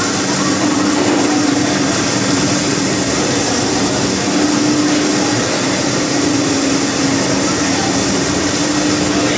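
Steady machinery drone of a continuous French-fry production line: a constant hum over a broad, even hiss.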